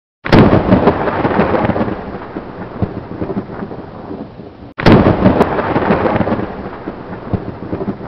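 Thunderstorm sound effect: a sharp thunderclap that rumbles away over rain, heard twice, the second crack coming about five seconds in; it cuts off abruptly at the end.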